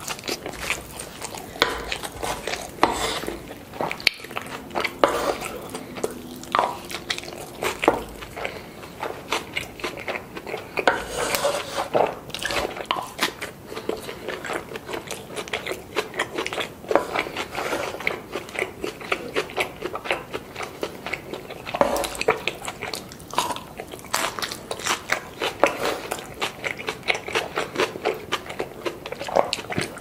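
Close-miked eating: biting, wet chewing and crisp crunching of carne asada, rice, salsa and tortilla chips, in a dense run of small crackles and clicks.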